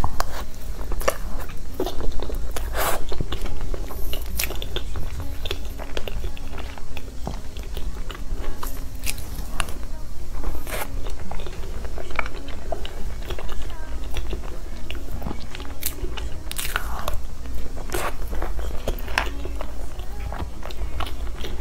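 Close-miked eating sounds of soft layered cream cake: wet mouth smacks and chewing as spoonfuls are taken from a plastic container, with sharp clicks scattered throughout.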